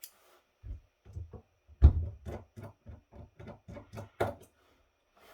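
A screwdriver backing screws out of a rack mixer's metal faceplate: a sharp knock about two seconds in, then a quick run of small clicks and taps, about four to five a second, that stops near the end.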